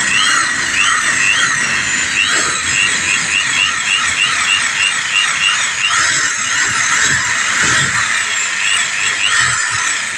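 Power drill scouring the carbon-crusted exhaust ports of a car engine block: a steady, high scraping squeal of the spinning tool against the metal, with short repeated chirps over it.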